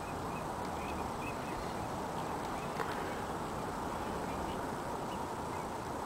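Distant waterfowl calling faintly, in short repeated calls, over a steady outdoor background hiss.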